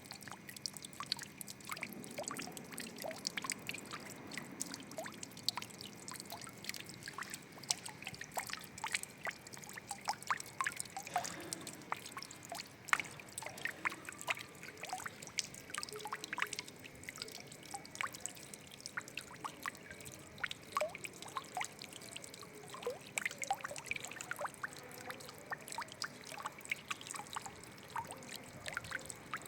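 Water trickling and splashing, with many small irregular drips and plinks over a soft steady wash.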